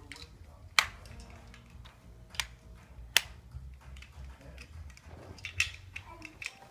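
Plastic toys clicking and tapping as a toddler handles them: a handful of sharp, irregular clicks, the loudest about a second in and again about three seconds in, over a low hum.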